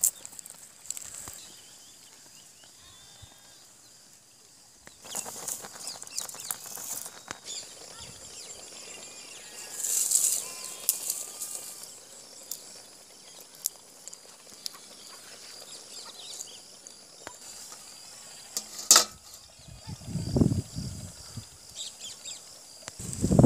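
Outdoor rural ambience with birds chirping, broken by clinks of steel cooking pots and a lid being handled, with a sharp click late on and low rumbles near the end.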